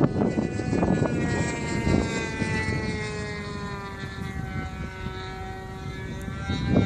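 Radio-controlled model airplane's motor and propeller droning high overhead, its pitch slowly dropping as it fades. A loud rushing noise comes back near the end.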